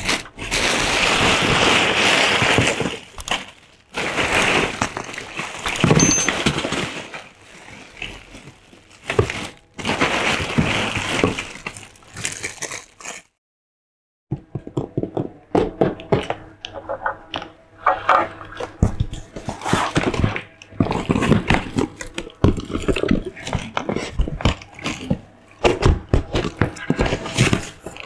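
Clear plastic toy packets crinkling and rustling in bursts as hands rummage through a box of bagged toys. After a brief gap, fingers tap, scratch and scrape on a taped cardboard box and pull its flaps open, in many short knocks.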